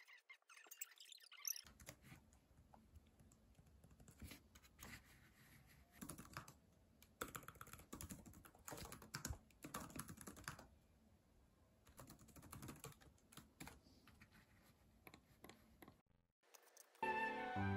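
Faint typing on an LG laptop keyboard: an irregular run of soft key clicks with short pauses, starting about two seconds in. Music comes in just before the end.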